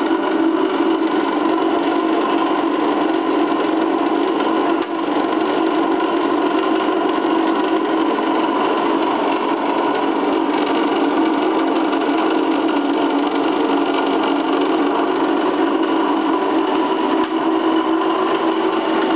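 Titan truck wheel polishing machine running: its electric motors and turning work table give a steady mechanical hum with several held tones over a whirring noise.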